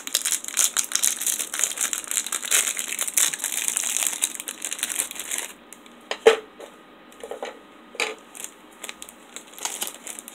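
Clear plastic wrapper of a pack of ration crackers crinkling as it is opened and handled. The crinkling stops about five and a half seconds in, followed by a few light taps as the crackers are set down on a plastic plate.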